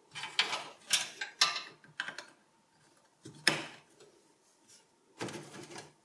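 A scattered series of short clicks and knocks as SATA data and power connectors are pushed onto an SSD and a sheet-metal drive cage is handled inside a small-form-factor PC case.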